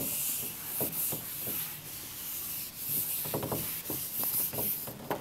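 A whiteboard eraser rubbing across a whiteboard in repeated wiping strokes, a continuous scrubbing hiss.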